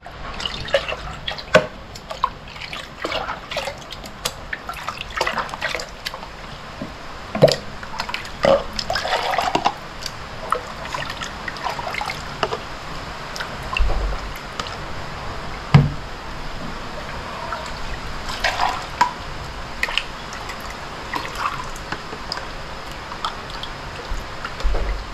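Homemade star apple punch being scooped from a metal pot with a small dipper and poured into plastic cups, splashing and dripping. Irregular knocks and clicks of the dipper against the pot and cups run through it.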